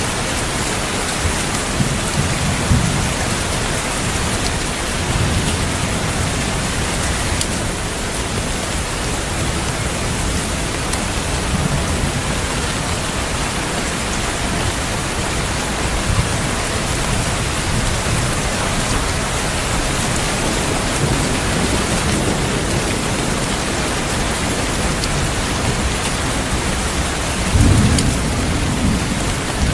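Steady heavy rain with low thunder rumbling several times, the loudest rumble near the end.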